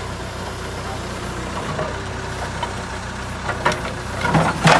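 Diesel engine of a JCB 3CX backhoe loader running steadily at low revs, with a few sharp knocks and clatters near the end.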